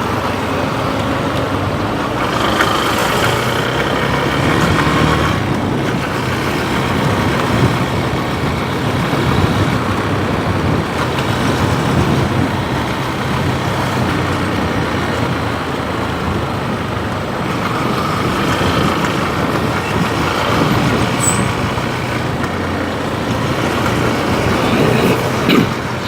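Motorcycle running on the road, a steady rush of engine and road noise with traffic around it, and a higher whine that comes in twice.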